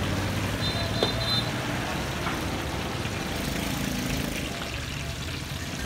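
Steady street traffic noise with a vehicle engine running low at the start. A short high-pitched beep sounds about a second in, along with a single light click.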